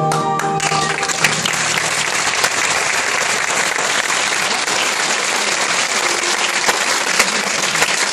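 Audience applauding, dense and steady. The last held note of the song fades out within the first second as the clapping takes over.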